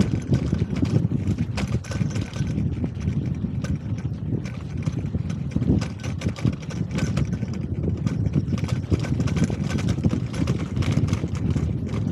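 A bicycle rolling along with its dog sidecar: a steady low rumble of wind and road on the microphone, with constant irregular rattling clicks.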